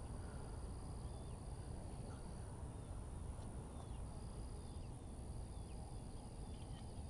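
Faint outdoor ambience over a low rumble. A steady high-pitched insect drone runs throughout, and a second shrill insect trill starts and stops several times. Short, falling bird chirps come every second or so.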